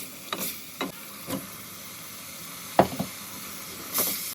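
Steady hiss of food frying in a pot, broken by several short knocks of a spoon against the pot as it is stirred. The loudest knock comes about three quarters of the way through.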